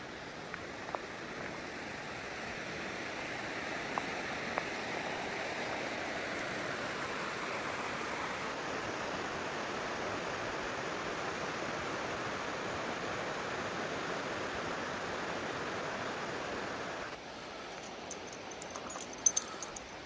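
Steady rush of a river's flowing water. About 17 seconds in it cuts abruptly to a quieter background with a few sharp clicks and snaps.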